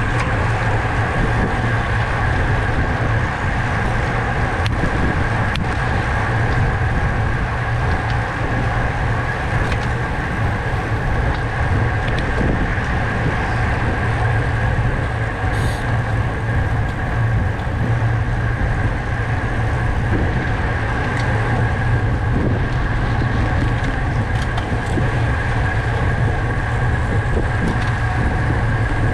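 Steady rush of wind and road noise from a racing bicycle moving at speed, picked up by a camera mounted on the bike, with a constant low drone underneath.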